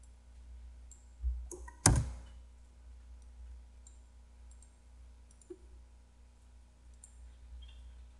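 Scattered small clicks of a computer mouse and keyboard, with one loud knock about two seconds in, over a low steady hum.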